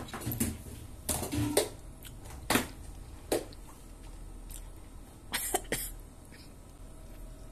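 A few short, sharp crackles and taps of a plastic snack packet being handled close to the microphone, with gaps between them.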